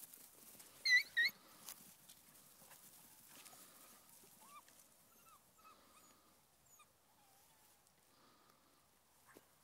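Beagle puppies yelping: two sharp, high-pitched yelps in quick succession about a second in, then a few faint yips scattered through the rest.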